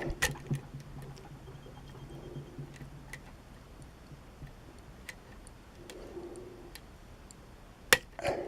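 Small scattered metallic clicks of lock picks and a tension wrench working the pins of a challenge lock during picking, with one louder click near the end.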